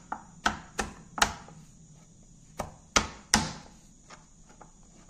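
Garlic cloves being crushed with a kitchen knife on a plastic cutting board: sharp separate knocks, four in quick succession in the first second and a half and three more about a second later, then only light taps.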